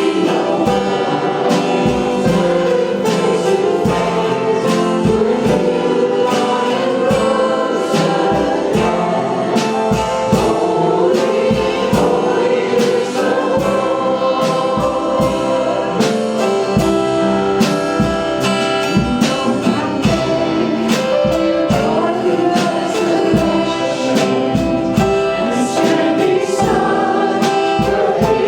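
Gospel-style worship song sung by a group of voices with instrumental accompaniment and a steady beat.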